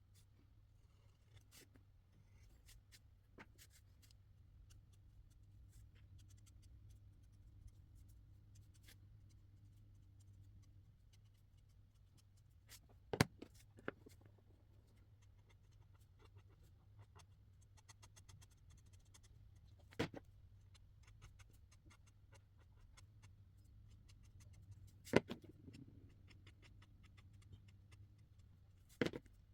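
Felt-tip marker drawing on paper, faint and scratchy, over a steady low hum, with a few sharp clicks: one pair together, then single clicks spaced several seconds apart.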